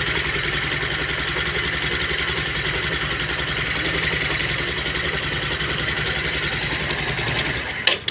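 Bajaj Discover motorcycle's single-cylinder engine idling steadily just after being started on the electric starter, its starter one-way roller clutch freshly repaired with tightened springs. Near the end the engine cuts off suddenly, followed by a sharp click.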